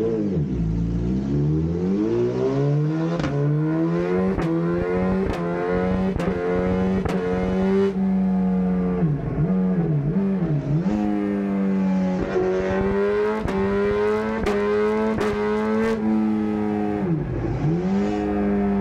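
Suzuki GSX-R1000 inline-four superbike engine running on the dyno. The revs climb smoothly for about eight seconds, then hold steady. They drop sharply and recover three times about halfway through, and once more near the end.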